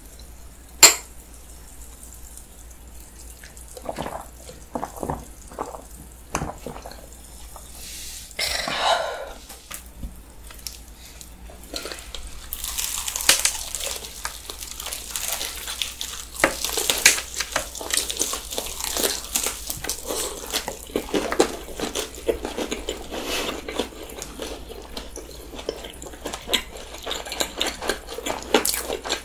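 One sharp clink of two drinking glasses about a second in, then a few quiet sips of cola. From about twelve seconds in, close-up crisp crunching and chewing as two people bite into fried chicken with a seasoned crust (BHC Puringkle).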